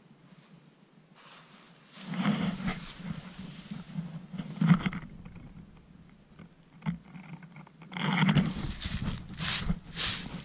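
Dry fallen leaves crunching and rustling underfoot as someone steps and shuffles about, in two irregular spells, one starting about two seconds in and another near the end.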